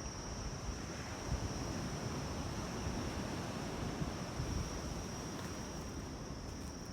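Wind buffeting the microphone, with a steady high-pitched drone of insects in the background.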